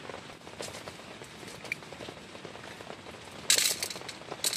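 Rain pattering steadily on a tent, with small scattered ticks, and two short, loud noises about three and a half seconds in and again a second later.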